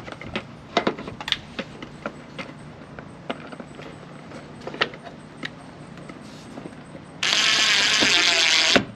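Small plastic clicks and knocks as a replacement turn-signal light assembly is handled and pushed into place. Near the end comes a loud, steady rushing sound lasting about a second and a half, which cuts off suddenly.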